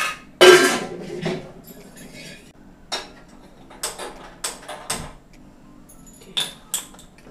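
Steel kitchen vessels clattering as a bowl is moved, the loudest sound, followed by a few sharp clicks of a hand-held gas lighter as a gas stove burner is lit.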